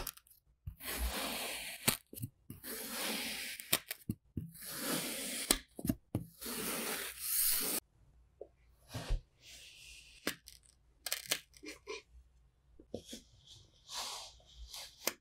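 A knife slicing through moulded kinetic sand: four gritty, crunching strokes of about a second each, then a stretch of quieter light taps and clicks, and another slice near the end.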